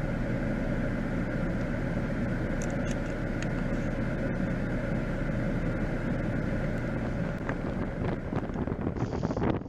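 Strong wind blowing, a steady rushing noise that turns gustier, with light ticks and rattles, in the last couple of seconds.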